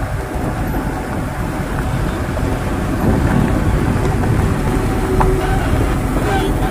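Diesel engine of a loaded Tata tractor-trailer truck running as the truck rolls slowly past close by, a steady low rumble, with a couple of short rattles near the end.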